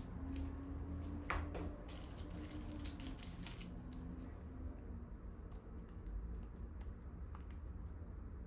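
Trading cards being handled at close range: light, irregular rustles and clicks of card stock and plastic.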